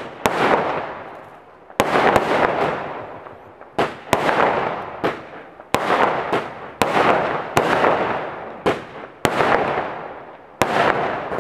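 Aerial fireworks shells bursting one after another, about a dozen sharp bangs at roughly one a second, each trailing off in a fading crackle.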